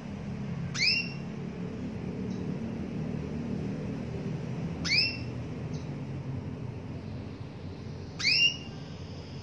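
Female canary giving three short contact calls about four seconds apart, each a quick rising chirp that levels off, over a steady low rumble.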